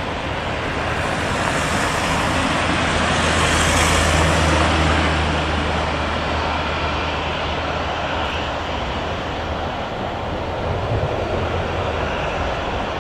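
Twin-engine jet airliner's engines at take-off power on the runway: a steady roar with a low rumble beneath it, swelling over the first four seconds and then easing as the aircraft rolls away.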